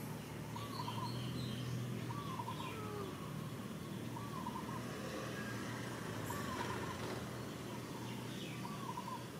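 A bird repeating a short two-part call about every two seconds, five times, with a few fainter higher chirps from other birds over a low steady hum.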